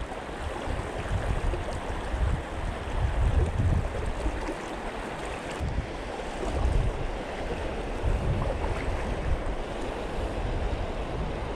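Shallow river current rushing over a stony bed, with gusts of wind buffeting the microphone now and then.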